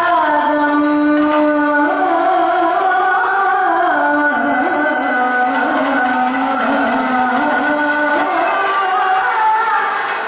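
Kathakali vocal music: women singing a slow Carnatic-style melody with long, held notes that bend in pitch. A high metallic ringing in an even repeating pattern joins about four seconds in.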